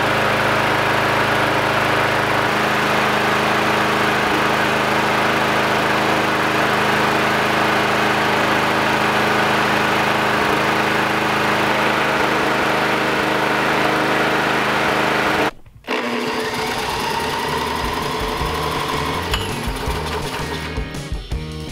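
Small single-cylinder lawnmower engine running steadily on straight starting fluid at a constant speed, then cutting off abruptly about three-quarters of the way through. Background music follows for the last few seconds.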